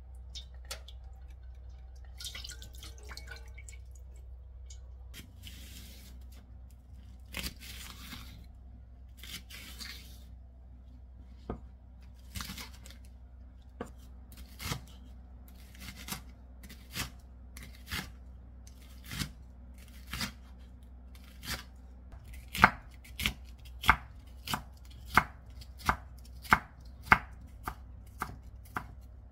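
Chef's knife chopping green onion and slicing onion on a wooden cutting board: single sharp strokes about once a second, coming faster and louder in the last seven seconds.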